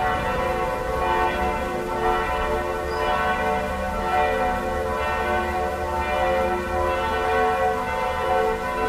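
Large bronze church bell swinging and tolling, its clapper striking about once a second so the strokes ring on into one another.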